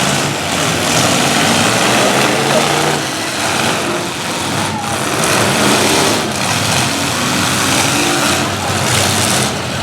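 Several demolition-derby trucks' engines running and revving together in a loud, dense mix, with the engine pitch rising and falling as the trucks are driven hard.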